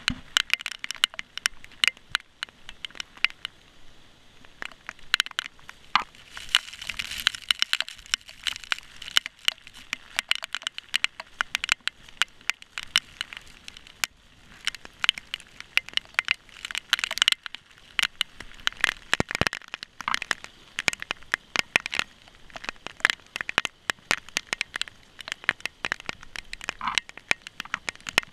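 Heavy rain runoff pouring and splashing straight onto a GoPro in its waterproof housing, heard as a dense, irregular crackle of sharp clicks.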